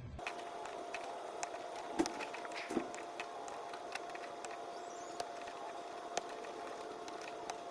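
Small metal clicks and ticks of a lock pick working in a car door lock cylinder, over a steady faint tone.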